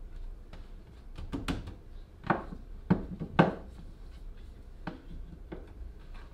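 Handling noise of a plywood boat seat and a spring clamp: about half a dozen separate knocks and scrapes as the seat is shifted in place and the clamp is picked up and clamped onto its edge, the loudest knocks around the middle.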